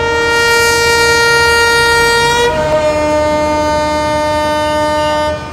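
Diesel locomotive air horn sounding one long blast that changes to a different chord about halfway through, then cuts off just before the end. It is the horn signal for the train's departure.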